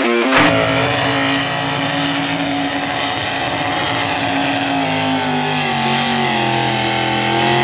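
A limited modified pulling tractor's engine running steadily at the starting line while hooked to the weight-transfer sled, its note dipping slightly about five seconds in.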